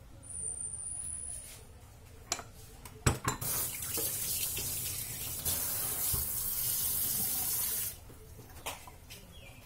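A few clicks and knocks, then water running from a tap for about four and a half seconds, starting and stopping abruptly.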